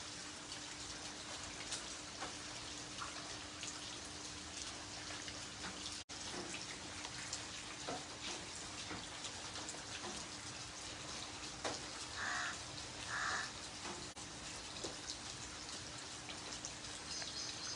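Rain falling steadily on wet concrete, with many small drops pattering and splashing into the standing water and a faint steady hum underneath. Two short calls, likely from a bird, stand out about two-thirds of the way through.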